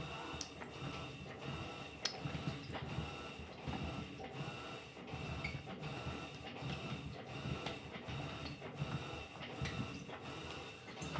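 Electrolux LTC15 top-loading washing machine agitating a wash load with sneakers in it: a steady, rhythmic churning with water sloshing, repeating evenly as the drive reverses back and forth.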